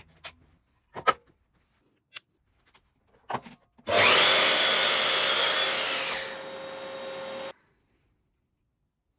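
A few clicks and knocks from handling a Makita LS1219 sliding miter saw, then the saw starts with a steady motor whine and runs for about three and a half seconds, easing somewhat partway through before cutting off abruptly.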